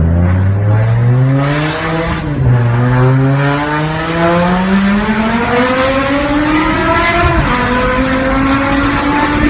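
BMW M5 E60's S85 V10, fitted with a supercharger and aftermarket exhaust, accelerating hard. The revs climb, fall at a gear change about two seconds in, climb again for several seconds, and fall at a second shift near the end.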